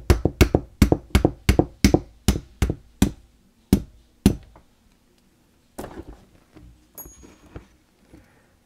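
Light, quick metal taps on a pin punch, about three a second, driving the mainspring housing retaining pin into a 1911 pistol frame; the taps space out and stop about four seconds in, followed by a few softer knocks.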